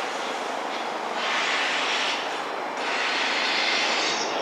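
Busy railway station ambience: a steady background rumble, with a hiss that swells and fades every second or two.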